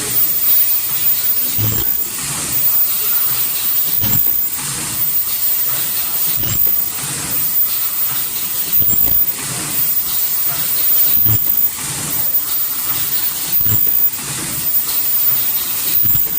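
Automatic N95 head-strap mask-making machine running, working through a cycle about every two and a half seconds, roughly 25 masks a minute: each cycle brings a low thud and a burst of air hiss, over a steady very high-pitched whine.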